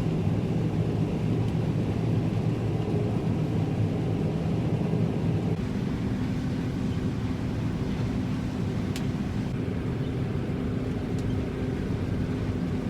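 Combine harvester running while cutting soybeans: a steady machine drone whose hum shifts to a higher note about six seconds in.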